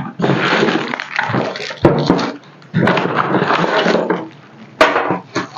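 Packaging rustling and crinkling in bursts of about a second as a DVR and its accessories are taken out of the box, with two sharp clicks, about two and five seconds in.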